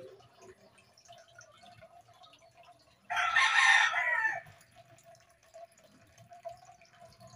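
Aquarium water trickling and dripping steadily. About three seconds in, a loud call lasting a little over a second cuts across it, its pitch falling at the end.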